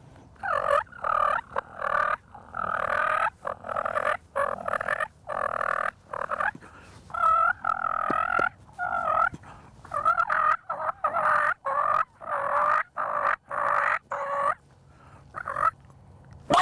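Wild turkey toms gobbling loudly and repeatedly, one rattling gobble after another with short gaps, several birds calling close by.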